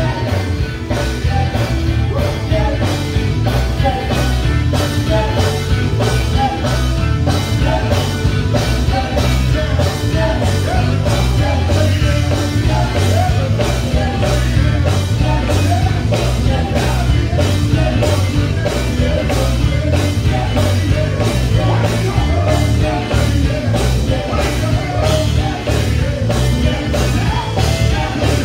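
Gospel music performed live: several men singing into microphones over a band with a steady beat and heavy bass.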